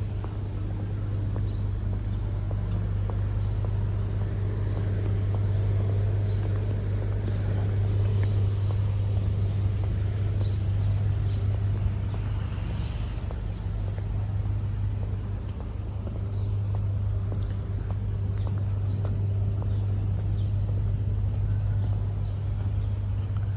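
Outdoor ambience dominated by a steady low rumble, with faint scattered ticks and chirps above it.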